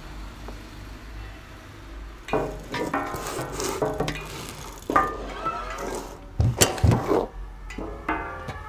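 Animated-cartoon sound effects for the airplane's transformation: a busy run of clattering and scraping noises, with two heavy low thumps about six and a half seconds in.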